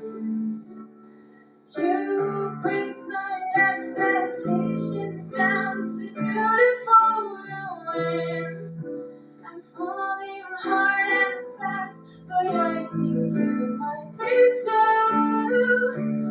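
Music: a woman singing a song over instrumental accompaniment, after a short dip near the start.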